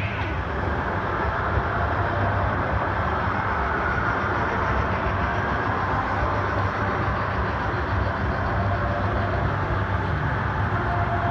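Model steam locomotive and its freight cars running past on the layout track: steady running noise of wheels rolling on the rails.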